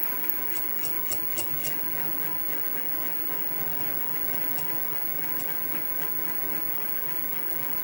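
Sieg SX2P mini mill running steadily while a 6 mm four-flute end mill plunge-cuts a steam passage into a steam engine cylinder. A few sharp ticks come from the cut in the first two seconds, and a couple more about halfway through.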